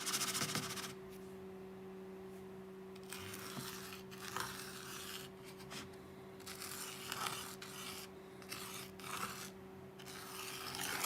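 Handwriting: a pen scratching across the writing surface in several separate runs of strokes as a word is written out, over a steady low hum.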